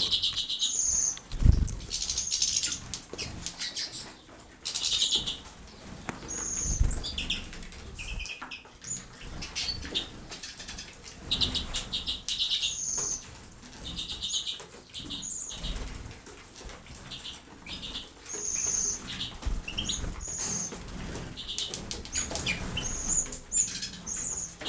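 Small pet birds bathing, fluttering their wings in water, with short high chirps repeated throughout and a few soft thumps.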